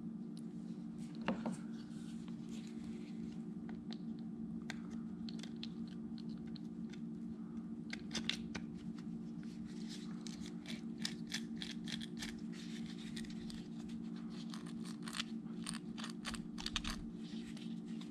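Small clicks and scrapes of plastic and metal parts being handled as a Traxxas Slash transmission is reassembled by hand, its shims and gears fitted back into the gear case. The clicks come thick and fast in the second half, over a steady low hum.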